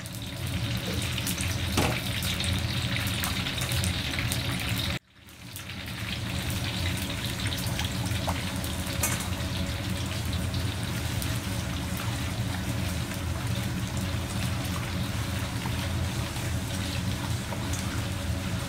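Sliced pork frying in a wok of hot oil, a steady dense sizzle over a low rumble. Before a cut about five seconds in, hot oil is poured from a ladle into the sizzling wok.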